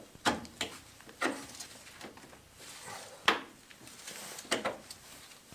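Rear drum brake parts being worked by hand, giving about five sharp clicks and knocks, the loudest a little over three seconds in, with quieter handling noise between them.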